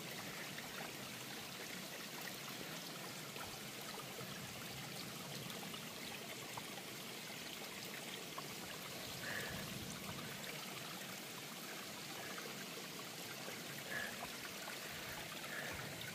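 Faint, steady rush of running water, such as a stream.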